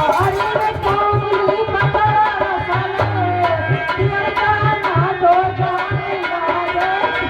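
Indian folk devotional music: a hand drum beats a quick, even rhythm of deep strokes under a melody line that slides and bends in pitch.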